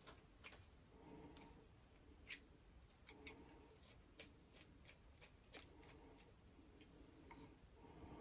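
Faint, scattered clicks and taps of a 3D-printed plastic safety razor being handled as a double-edge blade is loaded and the head is screwed together, with one sharper click a little over two seconds in.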